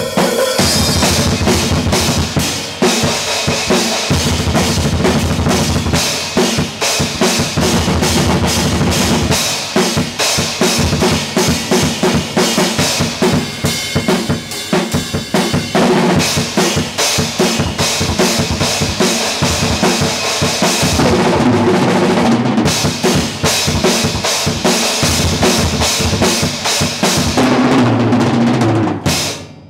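Acoustic drum kit played hard and fast: a dense, unbroken run of snare, bass drum and cymbal hits, turning to pitched tom strokes in the last few seconds and stopping abruptly just before the end.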